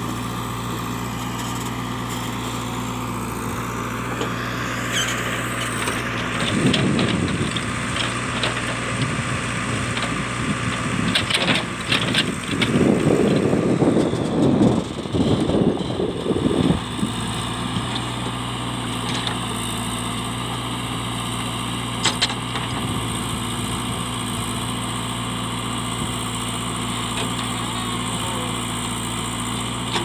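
JCB 3DX backhoe loader's four-cylinder diesel engine running steadily while the backhoe digs. There are louder stretches of scraping and knocking, a short one about a quarter of the way in and a longer one in the middle, as the bucket works through rocky soil and stones.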